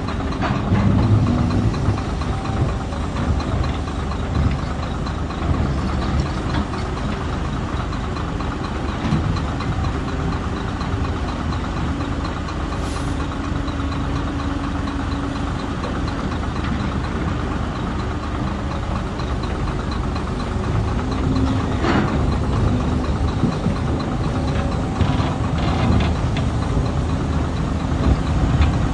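Hyundai excavator's diesel engine running steadily, with a few sharp knocks now and then.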